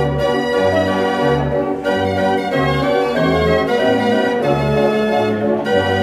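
Dutch street organ (draaiorgel) playing a tune: held pipe chords over an oom-pah bass that alternates between a low and a higher note about twice a second.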